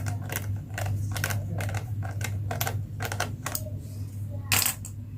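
Quick, irregular clicks and taps of small plastic toys being handled, with a louder clack near the end, over a steady low hum.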